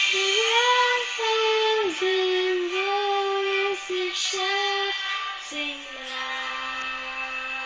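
A boy singing a slow melody in a series of held notes that slide between pitches, ending with one long low note that fades out near the end.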